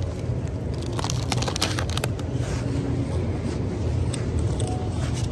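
Steady low rumble of store background noise, with light rustling and scattered clicks.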